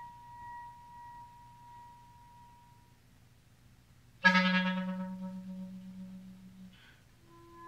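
Solo clarinet playing: a soft high note held about three seconds and fading, a short pause, then a sudden loud low note that dies away over about two and a half seconds, with new notes starting near the end.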